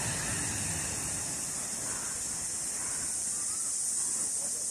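Outdoor nature ambience: a steady high-pitched hiss that doesn't change, with a few faint short calls in the middle.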